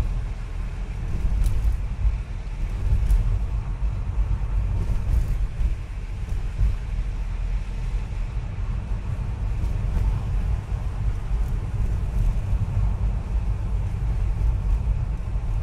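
Car engine and tyre noise heard from inside the cabin, a steady low rumble while driving slowly along a rough, narrow tunnel road.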